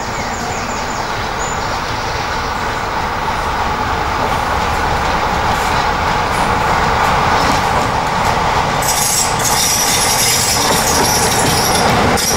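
British Rail Class 45 'Peak' diesel locomotive 45108, its Sulzer twin-bank 12-cylinder engine working as it approaches hauling passenger coaches, growing steadily louder as it draws near. A brighter hiss joins about nine seconds in as the locomotive comes close.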